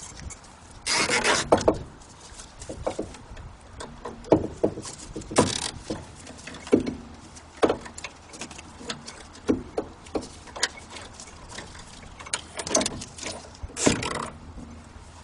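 Hands working at a car's front brake caliper: scattered clicks, knocks and rubbing, with a longer noisy burst about a second in and more near the end, as the caliper is cable-tied up to the suspension spring out of the way.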